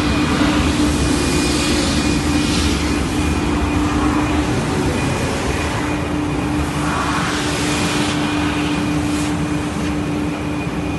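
WoodTec RRP 400 E calibrating (thickness) sander running: a steady machine drone with a held low hum and a faint high whine, the hiss swelling and fading a few times.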